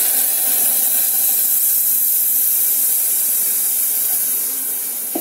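Milk poured into a hot pan of dry-roasted vermicelli, hissing loudly as it hits the hot metal and turns to steam. The hiss eases a little near the end.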